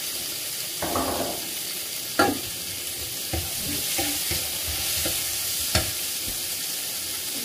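Cucumber slices sizzling as they stir-fry with garlic in a frying pan, with a wooden spatula scraping and stirring through them. A few sharp knocks of the utensils against the pan, the clearest about two seconds in and another late on.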